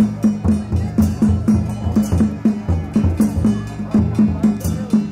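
Traditional Taiwanese procession percussion: drums beating a steady rhythm of about four strokes a second, with cymbal crashes every second or so.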